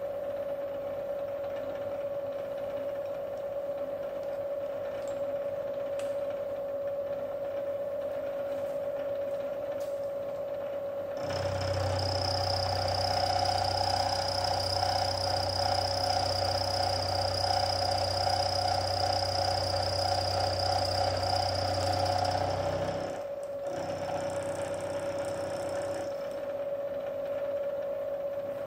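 Milling machine running with a steady hum while cutting the teeth of a steel pinion gear under a dividing head. About eleven seconds in, a second, louder motor run joins with a low hum, a high whine and a fast fine rattle, then stops about twelve seconds later.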